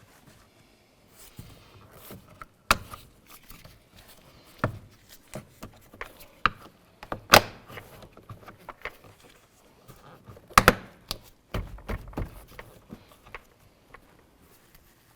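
A car's exterior door handle being pushed and fitted into the door: a run of sharp clicks and knocks, the loudest about three, seven and ten and a half seconds in.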